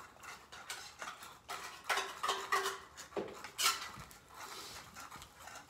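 A utensil scraping and clinking against a dish as canned cat food and dry kibble are mixed together, in irregular clicks and scrapes.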